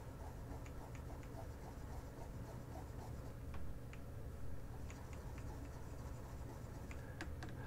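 A few faint, scattered clicks from a computer mouse in use, over a low steady hum.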